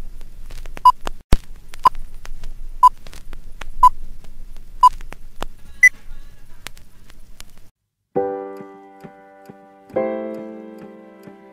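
Film countdown leader sound effect: a short beep once a second over the crackle and clicks of old film, with the last beep higher, about six seconds in. About two seconds later, piano chords begin, with a new chord struck roughly every two seconds.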